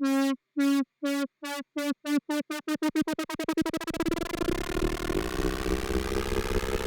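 Native Instruments Massive synthesizer playing an EDM uplift riser: a buzzy tone gated on and off by an LFO, the pulses speeding up until they blur into one continuous tone about four seconds in, its pitch slowly rising and a low rumble coming in under it.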